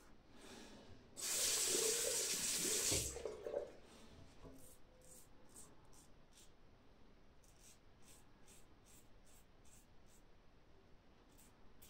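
A water tap runs into a sink for about two and a half seconds, starting about a second in. Then come faint, short, repeated scrapes of a Rockwell 6C safety razor cutting stubble through lather.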